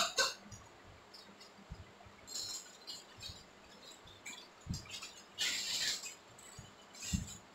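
Kitchen handling at a frying pan on an induction cooktop: a spoon stirring in the pan, scattered light clinks and knocks, and a short rustling rush a little past halfway.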